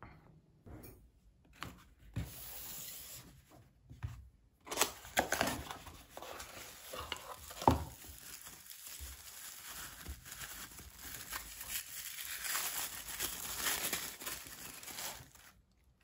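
White tissue-paper packing being crumpled and pulled apart while a small glass teacup is unwrapped from a cardboard box. A few light handling clicks come first, then continuous rustling from about five seconds in, with one sharp knock partway through.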